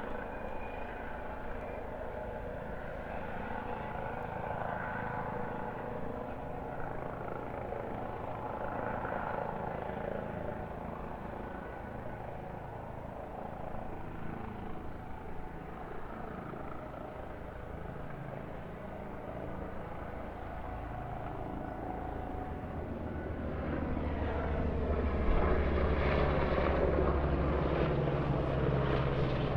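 Helicopter flyby: a steady distant rotor-and-engine rumble that grows louder about three-quarters of the way in, with a rapid rhythmic rotor chop as the helicopter comes closest near the end.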